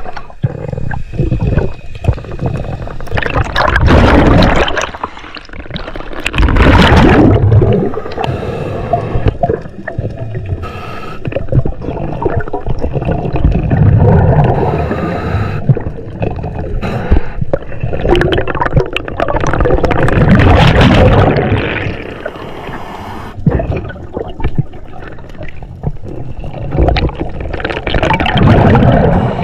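Underwater sound picked up by a camera in the sea: water rushing and gurgling against the housing, swelling loud every few seconds and then easing off.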